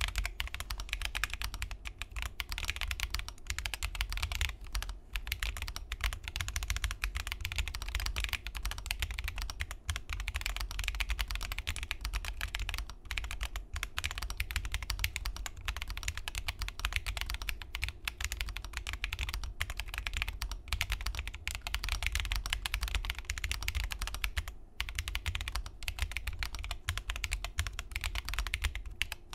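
Fast typing on a newly built Corne (crkbd) split mechanical keyboard: a dense, steady run of key clacks, broken by a couple of brief pauses.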